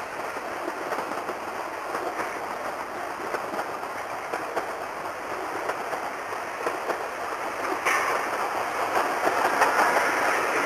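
Coaches of a 750 mm narrow-gauge steam train rolling past, wheels clattering and clicking on the rails while steam hisses from beneath them. The sound grows louder about eight seconds in.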